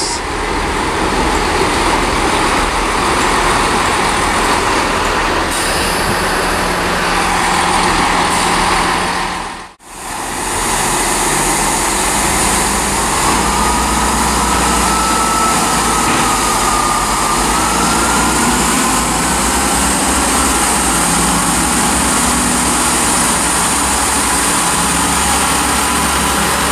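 Class 165 diesel multiple unit running steadily at the station platform. Its engine noise drops out briefly about ten seconds in.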